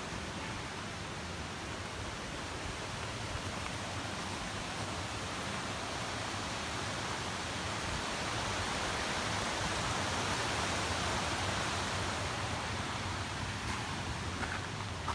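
Steady rushing of a mountain stream. It swells somewhat louder about halfway through, then eases off.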